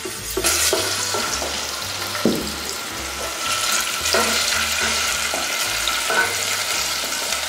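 Chopped onion sizzling in hot olive oil in a stainless steel saucepan, stirred with a wooden spoon. The sizzle starts about half a second in and stays steady.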